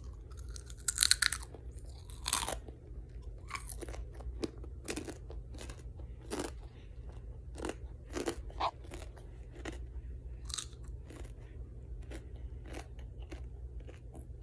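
Close-up crunching and chewing of a mouthful of Takis Guacamole rolled corn tortilla chips and Takis popcorn. The loudest crunches come about a second in and just after two seconds, then quieter chewing crunches continue on and off.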